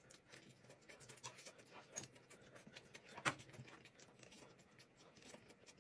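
Faint eating sounds: quiet chewing and the soft rustle of thin wheat pancakes being folded into rolls, with scattered small clicks and one sharper click about three seconds in.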